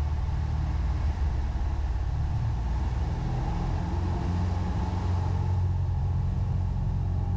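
Steady drone of a Piper Cherokee Six's six-cylinder piston engine and propeller, heard inside the cabin on final approach.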